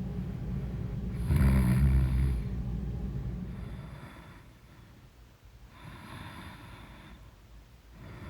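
A woman snoring in her sleep: one loud, deep snore about a second in, then fainter breaths roughly every two seconds. A steady low rumble in the first few seconds fades away.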